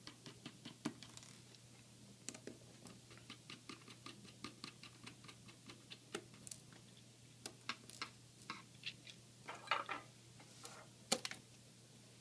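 A screwdriver backing out small laptop screen screws: a run of quick, even little clicks, about five a second, then scattered clicks with a few louder knocks near the end.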